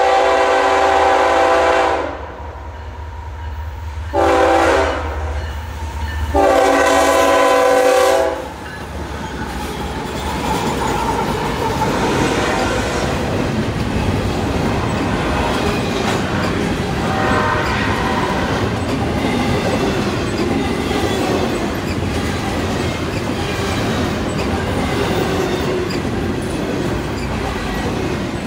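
Air horn of the lead BNSF diesel locomotive on a freight train sounding three blasts (long, short, long) as a chord of several steady notes, over a low engine rumble. Then the steady rolling rumble and clickety-clack of wheels as double-stack container well cars pass close by.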